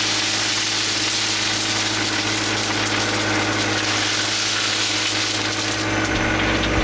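An engine running steadily, with a loud continuous hiss over it.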